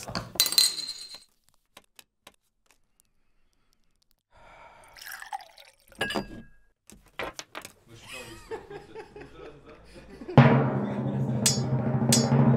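Foley and score of a paper-cut animation: a short papery burst of playing cards near the start, then near silence, faint clicks and a brief liquid trickle, and about ten seconds in a loud low sustained musical chord comes in and holds.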